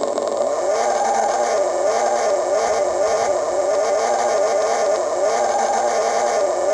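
Bazsound RC car sound unit playing its synthetic engine sound, the pitch rising and falling about once a second as if revving through a drift, with the added tyre squeal held steadily over it.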